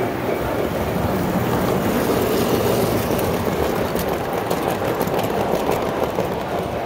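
Vintage standard-gauge tinplate toy train, an electric-outline locomotive with passenger cars, running on three-rail metal track: a steady rolling rumble and motor whir. It grows a little louder as the train passes close by, with a quick run of clicks as the wheels cross the rail joints about four seconds in.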